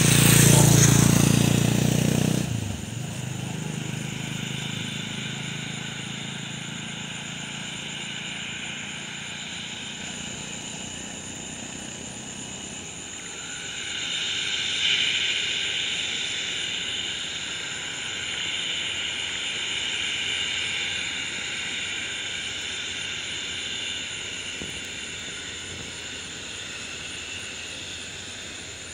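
Steady, distant whine of an IndiGo Airbus A320's jet engines at low power, swelling a little about halfway through and again later. A louder, close engine rumble fills the first two seconds and then stops abruptly.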